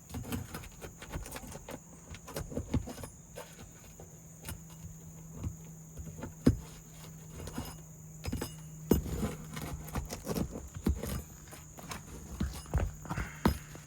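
Irregular knocks, taps and scrapes of hands and tools working on a shingle roof, with a sharp knock about six and a half seconds in. A steady low hum and a faint steady high whine run underneath.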